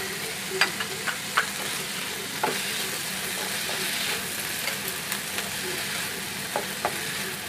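Chopped onion, tomato and capsicum sautéing in oil in a non-stick frying pan, sizzling steadily as they are stirred with a slotted spatula. The spatula gives a few sharp taps against the pan.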